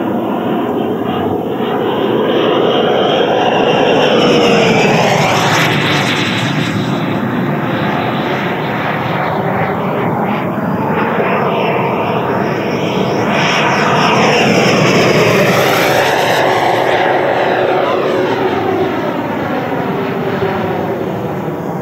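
Electric ducted fan of a large RC jet, a JETFAN-120 PRO on a HET Typhoon motor, running at speed in flight with a steady rushing whine. It swells as the jet passes close, about four seconds in and again around fifteen seconds in, with the pitch sliding down as it goes by.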